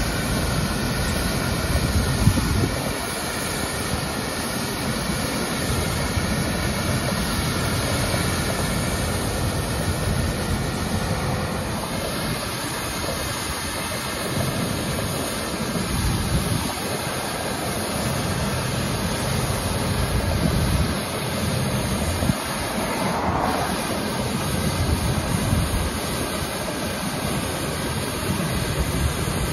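A street sweeper truck runs as it sweeps along the curb: its engine and spinning brushes make a steady noise. Cars pass on the road at times.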